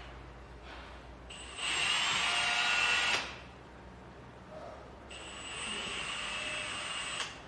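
Cordless drill with a 5 mm bit drilling holes in two runs, each a steady high motor whine: a louder one about a second and a half in, then a softer one from about five seconds in.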